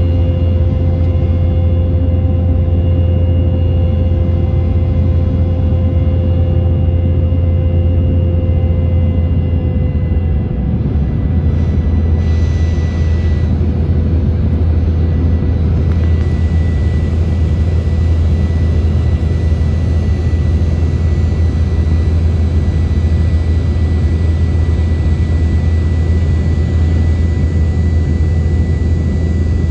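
Steady jet engine drone and rushing air heard inside the cabin of an Embraer 190, its two GE CF34-10E turbofans running with a few thin steady whining tones over a deep rumble. Some of the tones shift and fade about ten seconds in, with no change in overall loudness.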